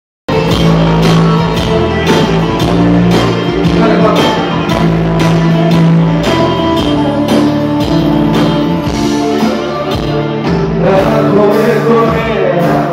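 Live band playing the instrumental opening of a Greek pop song, with bouzouki and electric guitar over a steady beat.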